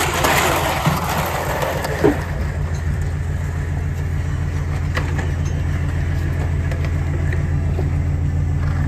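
An engine idling steadily with a low, even hum, with a brief squeak about two seconds in.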